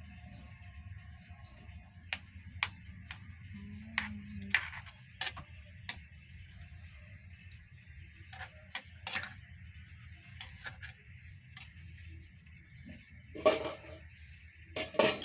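Metal spoon stirring chicken curry in a metal pan on a gas burner: irregular sharp clicks and taps of the spoon against the pan, with two louder clatters near the end, over a steady low hum and hiss.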